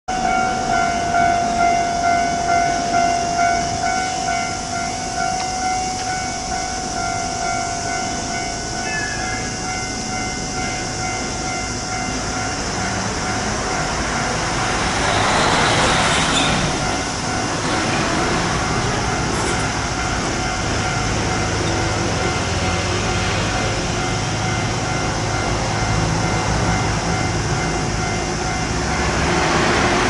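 Japanese level-crossing warning bell ringing electronically at about two strikes a second, loudest in the first few seconds and fainter after. A brief rushing swell comes about halfway through. In the second half a low rumble builds as an electric train starts off towards the crossing.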